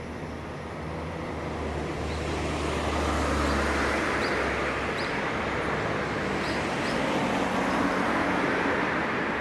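Vehicle rolling past, its noise building over the first three seconds and then holding steady, with a low hum that fades about five seconds in.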